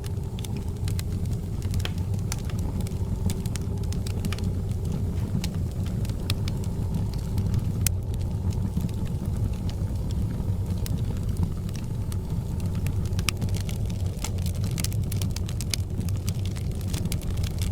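Wood fire burning in a fireplace: a steady low rumble of flames with frequent sharp crackles and pops, which come more thickly near the end.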